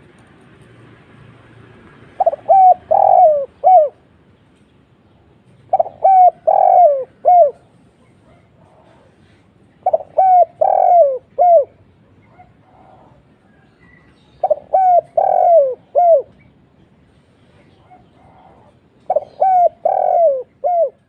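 Spotted dove cooing, five phrases about four seconds apart, each a short run of several notes ending in a falling coo.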